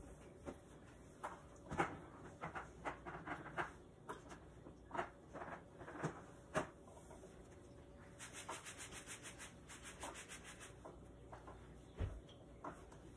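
Cloth wiping and rubbing a hard kitchen surface, with scattered light knocks and clicks of things being handled. Past the middle comes a run of quick, even rubbing strokes, and near the end a single dull thump.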